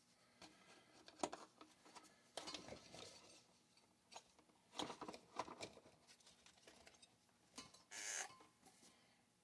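Faint clicks, taps and knocks of hard plastic chainsaw parts being handled and pressed into place on a Stihl MS 390 body, with a brief hiss near the end.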